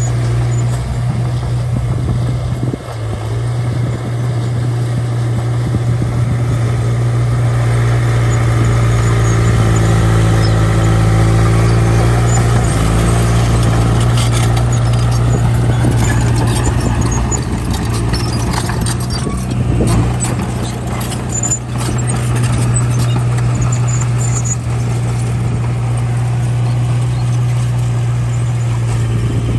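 Small bulldozer's diesel engine running steadily under load, with intermittent high squeaks and clatter, thickest around the middle.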